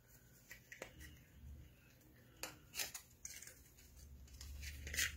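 Faint handling noises of a lip gloss package being opened, with a few light clicks.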